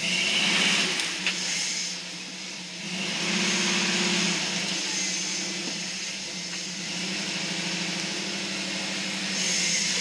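1969 Ford Bronco engine running, the revs rising briefly near the start and again about three seconds in, with a steady hiss over it.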